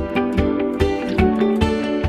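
Background music: plucked acoustic guitar with a steady beat.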